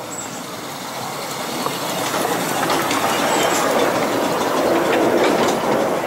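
Miniature railway train passing close, its open passenger carriages' wheels rumbling and clicking over the rail joints, growing steadily louder.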